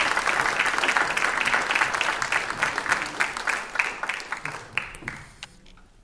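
Audience applauding: many hands clapping, thinning out over the last two seconds to a few scattered claps before dying away.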